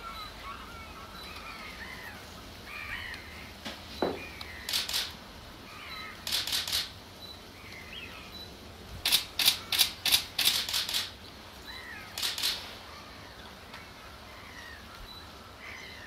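Pied avocets calling: short, sharp notes, a few at a time, with a quick run of about seven near the middle. Fainter, wavering calls of other birds run underneath.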